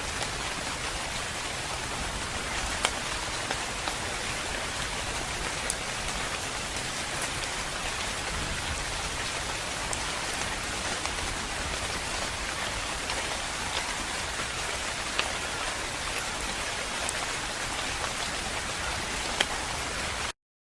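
Calm, steady rain falling: an even hiss with a few sharper drop ticks here and there. It cuts off suddenly near the end.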